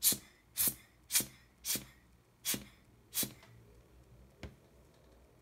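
Rubber hand air blower squeezed six times in quick succession, each squeeze a short hissing puff of air, about half a second apart; a single light click follows near the end.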